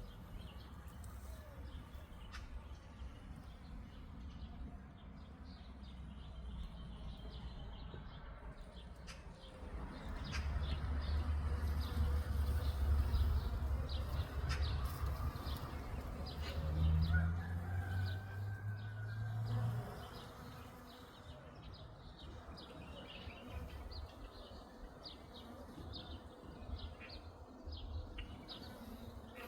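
A bee buzzing close by among hawthorn blossoms, loudest for about ten seconds in the middle, its pitch rising briefly near the end of that stretch, while small birds chirp throughout.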